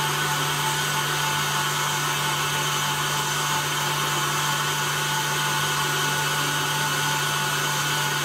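KitchenAid stand mixer whipping egg-white meringue with its whisk, the motor running steadily with a constant hum and whine while caramel is drizzled into the bowl.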